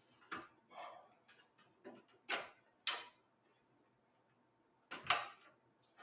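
Scattered sharp clicks and light knocks as cable connectors are unplugged from a 3.5-inch hard drive in a desktop computer's metal drive cage. There are about half a dozen, with a pause in the middle and the loudest knock about five seconds in.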